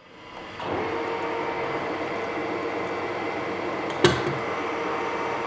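Metal lathe starting up in the first second, then running steadily with a steady hum while a boring bar opens out a drilled hole in a steel bar. One sharp knock about four seconds in.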